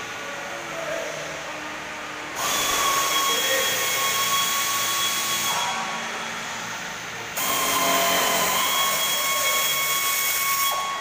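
A power tool in the workshop runs in two spells of about three seconds each, a high whine over a strong hiss, each starting and stopping abruptly.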